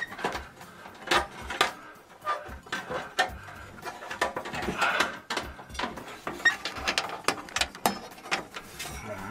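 Hands folding spliced wires and plastic wire nuts into a sheet-metal exhaust fan housing: irregular clicks, taps and light knocks against the metal, with rustling of the wires in between.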